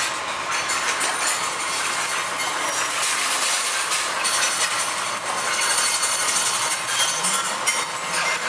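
Hydraulic two-post parking lift lowering its platform: a steady hiss from the hydraulic unit, with occasional light metallic clinks.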